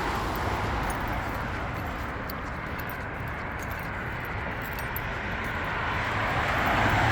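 Road traffic passing through an intersection: steady tyre and engine noise that dips a little in the middle and builds again near the end as another vehicle approaches.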